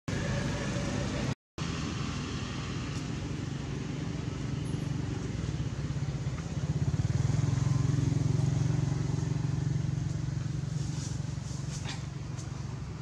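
A motor engine running steadily, louder for a few seconds about halfway through, then easing off. The sound cuts out completely for a moment about a second and a half in.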